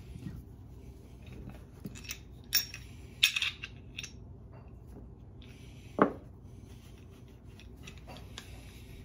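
Small metal engine parts clinking and knocking on a workbench while a cloth shop rag rubs over them as they are wiped clean. A few sharp clinks, with the loudest knocks about three seconds and six seconds in.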